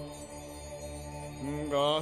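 A man's solo singing voice in a Romanian Christmas carol (colind). A held note at the end of a line fades out, and after a short quieter gap he takes up the next line about a second and a half in, on a long note with a wide vibrato.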